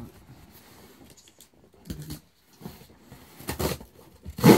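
Cardboard shipping box being handled and turned, with scattered scrapes and knocks and one loud thump near the end.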